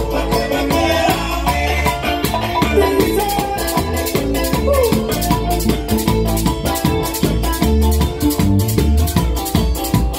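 A live Latin band playing: strummed guitars, bass and drum under a steady, fast shaken or scraped hand-percussion rhythm that comes to the fore about three seconds in.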